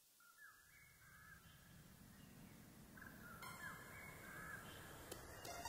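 Faint bird calls over a low rumble that slowly grows louder.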